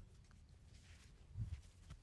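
Hands working on a person's body during a massage: faint rubbing and one soft, low thud about a second and a half in.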